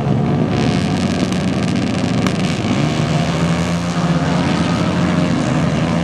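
A pack of dirt-track racing motorcycles revving together as they leave the start line and accelerate away as a group. Several engines sound at once, their pitches overlapping and shifting.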